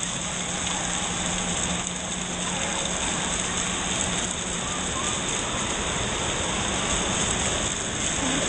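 Steady rush of falling, splashing water with a background murmur of voices, as in an indoor water park.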